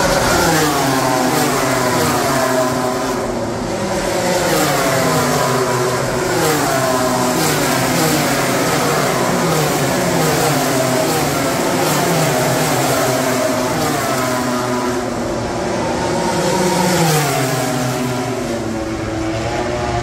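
A pack of MotoGP race bikes' 1000 cc four-stroke engines at high revs, several overlapping, their pitch falling again and again in quick steps as they downshift under hard braking.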